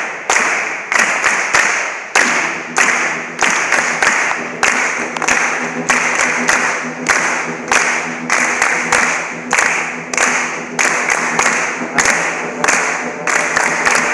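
Hand claps in a repeating syncopated rhythm. About two seconds in, a low sustained chord joins underneath and holds while the clapping goes on.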